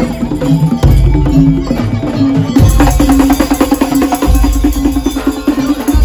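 Instrumental percussion music in the Madurese daul style: drums and rapid wood-block-like strikes over heavy bass notes and a repeating melodic line, the strikes growing denser about halfway through.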